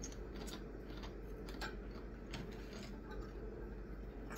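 Faint, irregular crunches and small clicks of crispy potato snacks being chewed and picked up off a plate.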